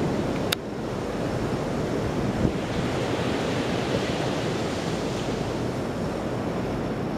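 Surf washing onto a sandy beach, with wind buffeting the microphone, a steady rushing noise. A single sharp click about half a second in.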